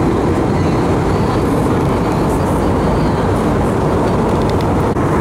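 Steady, deep rushing cabin noise of an airliner in flight: engine and airflow noise heard from inside the cabin.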